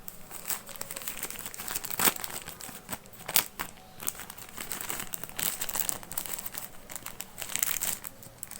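Packaging being handled and unwrapped, crinkling and crackling irregularly, with sharper crackles about two and three and a half seconds in.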